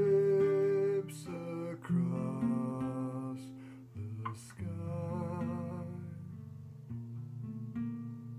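Acoustic guitar playing chords, with a man's voice holding long wordless sung notes over it, one with a slight vibrato.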